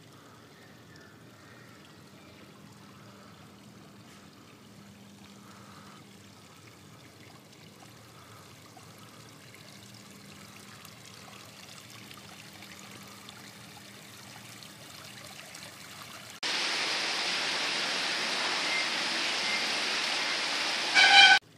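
Water running over a granite floating-ball fountain. At first it is a faint, steady rushing. About three-quarters through it turns into a much louder, even rush of flowing water, with a brief louder burst just before it cuts off suddenly.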